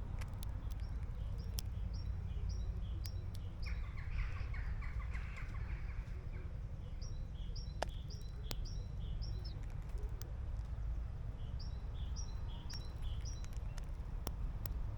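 A garden songbird sings three phrases of a quick, repeated two-note call. There is a short chattering burst about four seconds in, and a few scattered sharp clicks. A steady low rumble of wind runs underneath.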